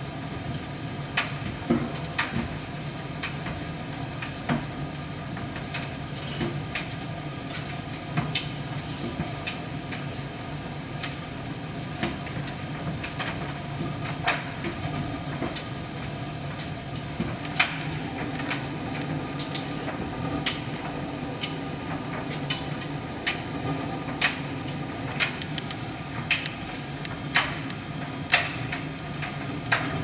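Miele PT 5136 tumble dryer running: a steady hum from the machine, with irregular sharp clicks and knocks about every second or two.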